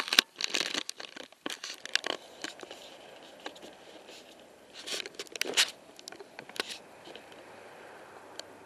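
Irregular crackling and rustling right at the microphone, in clusters about a second in and again around five to six seconds, with a quieter stretch near the end.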